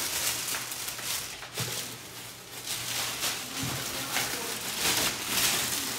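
Thin plastic bag crinkling and rustling in irregular bursts as it is pulled up off a sewing machine, louder toward the end.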